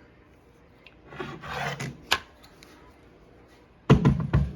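A loose hinge assembly handled and rocked by hand: a short scraping rub, a sharp click about two seconds in, then a quick cluster of heavy knocks near the end as the play in its pin and hinge takes up.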